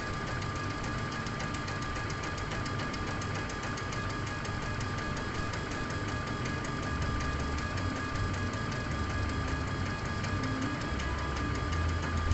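Laser engraving machine running as it engraves a label into leather: a steady whine from its motors with fast, even ticking and a low hum that grows louder in the second half.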